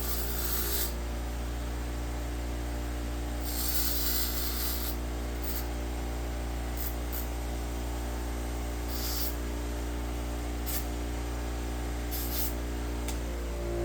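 A steady low hum, with brief hissy scrapes and rustles every second or two as tools and objects are moved about on a workbench.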